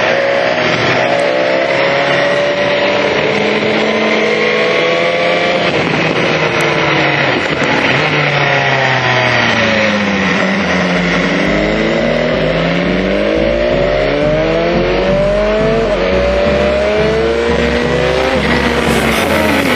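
BMW S1000XR's inline-four engine through an Akrapovič exhaust, revving under riding. Its pitch rises and falls several times, dropping low about ten seconds in before climbing again.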